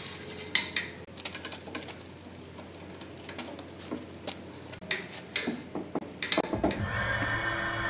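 Irregular light clicks and clinks, like small hard objects being handled, with a low steady rumble setting in about six and a half seconds in.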